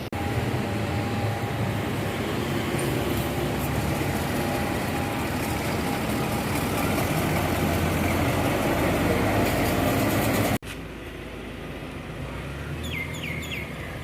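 Large tour bus engine running and moving close by, a steady loud rumble. It cuts off suddenly about ten and a half seconds in, giving way to quieter traffic background with a few short high chirps near the end.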